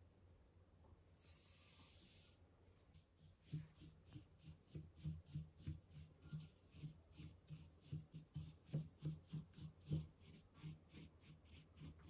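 Wooden spoon stirring damp sesame seeds in a ceramic bowl, faint, with soft knocks of the spoon at about three a second. A brief hiss comes about a second in.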